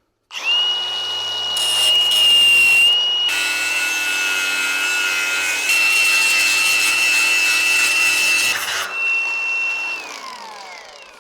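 Angle grinder whining up to speed, then grinding steel in two stretches with a short break between. Near the end it is let go and spins down, its whine falling.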